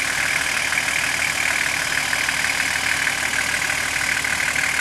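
Nissan Patrol 4x4's engine idling steadily as the vehicle creeps down a steep gravel slope, with no revving.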